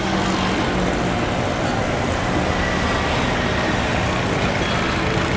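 Steady engine hum, running evenly, over street traffic noise.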